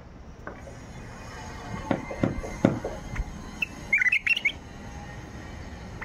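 White-eared bulbul (Baghdad bulbul) giving a short burst of quick chirping notes about four seconds in. It comes after a few sharp knocks about two seconds in.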